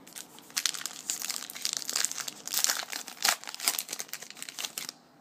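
Wrapper of a 2012 Topps Magic football card pack crinkling and crackling as it is torn open and pulled off the cards, with dense irregular crackles for about four seconds.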